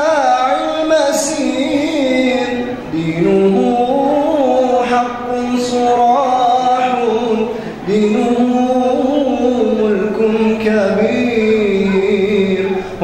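A male munshid singing an Islamic nasheed in a long, ornamented solo line, holding and bending notes, with two short breaths.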